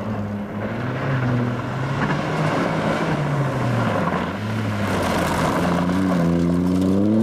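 Ford Fiesta rally car driven hard on gravel, the engine note falling and rising through gear changes, with gravel rushing under the tyres in the middle. The revs climb steadily near the end as it accelerates.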